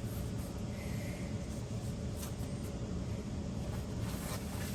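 Steady low room hum, with a couple of faint, light handling sounds from unpacking monitor parts from their packaging.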